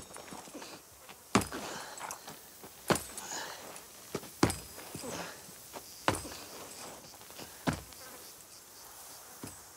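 Slow, heavy boot footsteps on dry, stony ground, five steps about a second and a half apart, with faint insect buzzing.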